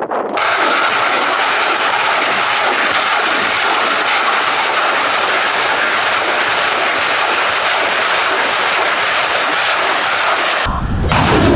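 Thunderbolt-2000 truck-mounted multiple rocket launcher ripple-firing a salvo: a loud, steady rushing roar of rocket motors. It cuts off abruptly near the end and gives way to a deeper rumble.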